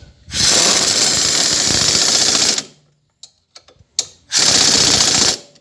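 A power tool runs in two bursts: about two seconds, then after a short gap about a second more, each starting and stopping sharply.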